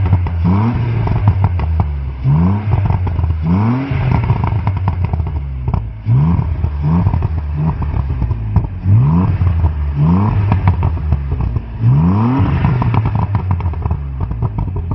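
Renault Clio V6's 3.0-litre V6 engine, through a QuickSilver sports exhaust, being blipped repeatedly from idle: short sharp revs every second or two, each dropping straight back to idle. Crackles and pops come from the exhaust as the revs fall.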